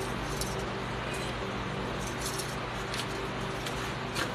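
A steady shop hum and hiss, with a few faint light clicks scattered through it.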